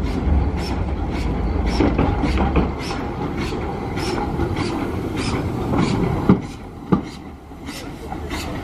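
W.G. Bagnall 0-4-0ST saddle-tank steam locomotive moving slowly, its exhaust chuffing about three beats a second over a low rumble, with two sharp knocks a little past the middle.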